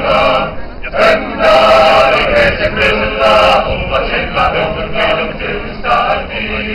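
Choir of male voices singing in unison and harmony, heard from within a large crowd.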